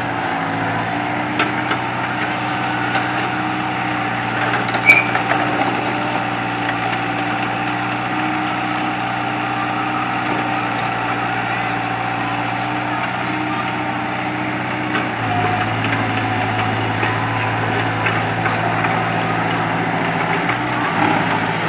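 Diesel engine of a Kobelco SK03 excavator running steadily as the machine tracks down off a trailer's ramps and away, with one sharp clank about five seconds in. The engine note changes about fifteen seconds in.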